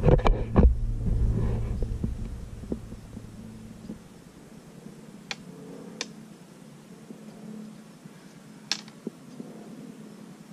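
Handling noise from a fishing rod and line being worked by hand: a cluster of knocks and rumble at the start, then a few sharp, light clicks spaced a second or more apart.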